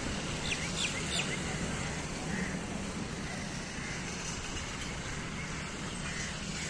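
Outdoor background noise: a steady rumble and hiss with no single clear source, and a few short high chirps about a second in.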